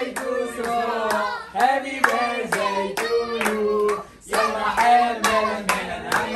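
A small group clapping hands in a steady rhythm while voices sing along.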